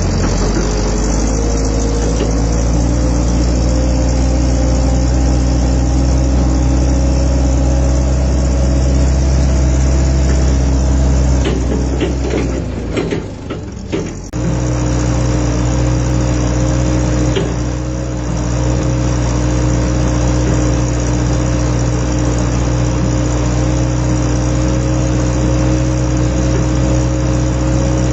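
Vehicle engine running steadily. Its pitch creeps up over the first ten seconds or so, drops away briefly about 13 seconds in, then holds steady again.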